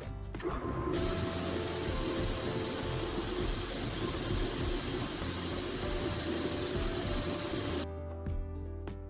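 A steady spraying hiss, as from a spray or air-blast tool working on the metal toy parts, starting just after the start and cutting off suddenly about eight seconds in, over background music.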